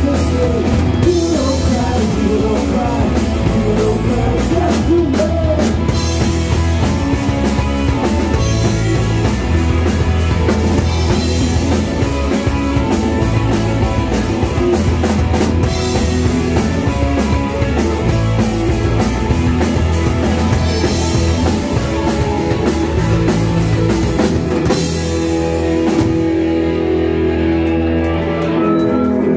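Live rock band playing: drum kit, electric guitars and vocals. About 25 seconds in the drums and cymbals stop and the band holds a final chord, ringing to the song's end.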